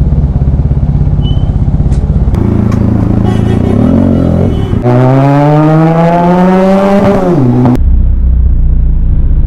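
Benelli TNT 300's parallel-twin engine running in slow traffic, then revving up with a steadily rising pitch for about three seconds from near the middle before dropping sharply as the throttle closes. Near the end the sound switches abruptly to a duller, steady engine note.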